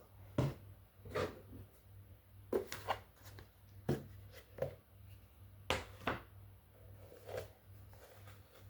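Kitchen handling noise: about nine irregular short knocks and taps, as of containers and utensils being set down and moved while adding a pinch of salt to flour, over a low steady hum.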